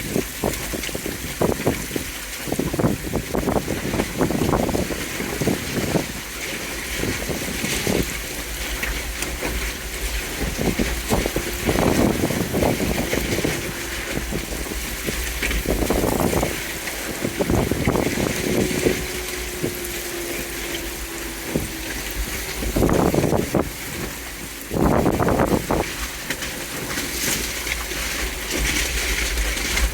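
Flash floodwater rushing and splashing, in irregular surges every second or so, over a steady deep rumble.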